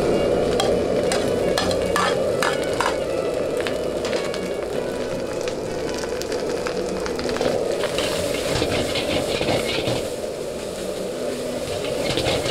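Fried rice being stir-fried in a wok: food sizzling while the cook's tool knocks and scrapes against the pan, over a steady rushing noise. The knocks cluster in the first few seconds, and the sizzle is strongest near the end.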